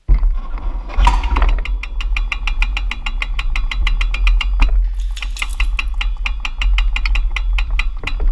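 Bicycle freewheel ticking steadily, about six clicks a second, as the bike coasts, over a heavy low rumble of wind on the microphone.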